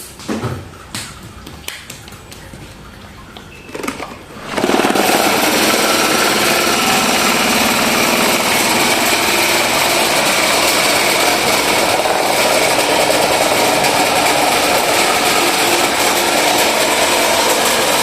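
A few light knocks, then about four and a half seconds in an electric fan starts suddenly and runs loud and steady, a wobbly ('drunk') fan.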